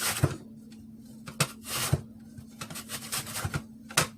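Irregular knocks and taps from vegetables being cut and handled on a kitchen counter, about a dozen short hits, over a steady low hum.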